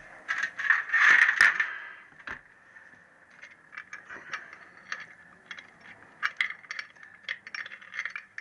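Metal gearbox parts from a Triumph T120R gear cluster being handled and set down: a loud clatter in the first two seconds, then a string of sharp clinks and taps.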